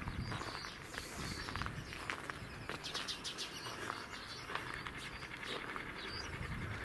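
Small birds chirping in short, quick calls, with a fast run of chirps about three seconds in.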